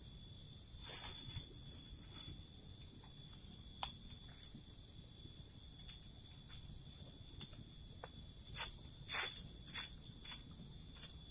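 A steady high-pitched drone of forest insects, several even tones held without change, broken by short sharp clicks and crackles: one about a second in, a few scattered, and a quick cluster of the loudest ones near the end.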